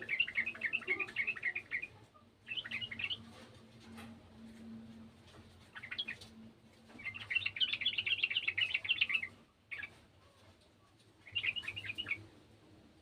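Yellow-vented bulbul (trucukan) singing in repeated bursts of rapid chattering notes with short pauses between them; the longest phrases last about two seconds.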